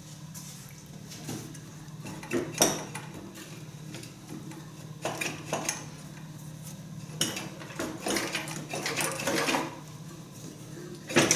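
Metal tools and engine parts clinking and clattering during an engine teardown: a string of sharp knocks, the loudest about two and a half seconds in and again near the end, over a steady low hum.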